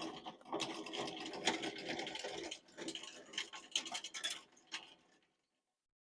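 Table-raising mechanism of a Grizzly jointer-planer combo being cranked: its chain and sprockets clicking and rubbing, dry and in need of grease, stopping about five seconds in.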